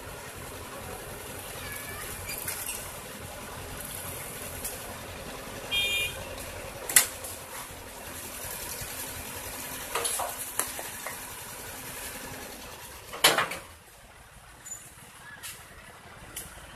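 An engine idling with a steady low hum, broken by several sharp metallic knocks and clanks, the loudest about thirteen seconds in; the engine hum drops away right after it.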